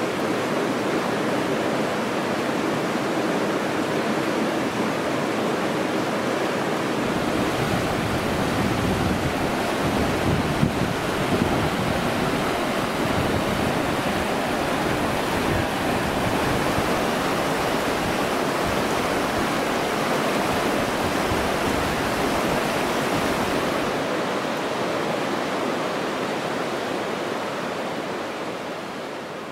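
Rushing mountain river water of the Kurobe River, a steady, even rush. From about seven seconds in until about twenty-four seconds, a low gusty rumble of wind on the microphone joins it, and the whole fades out near the end.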